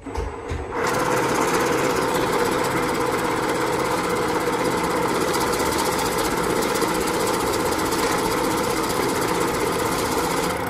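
NewWave NW-1100 banknote counting and sorting machine running, its feed rollers pulling a stack of mixed notes through one by one with a fast, steady whirring flutter. It starts about a second in and holds an even, loud level throughout.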